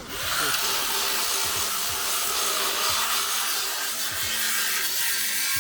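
Steady, harsh hiss of metalwork on a car-body quarter panel, either a power tool grinding the steel or welding, running without a break.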